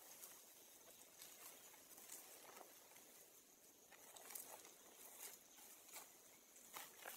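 Near silence with faint, scattered small clicks and crackles, roughly one a second: a long-tailed macaque chewing and handling a piece of food.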